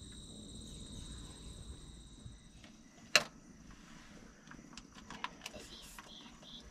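A single sharp click about three seconds in, then a few fainter ticks. Before the click, a steady high whine fades out.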